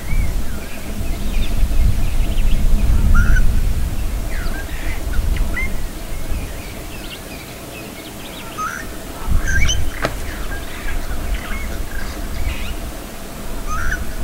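Wild birds chirping and calling in short, scattered notes over a low, uneven rumble that swells in the first few seconds and again about nine seconds in. A single sharp click sounds about ten seconds in.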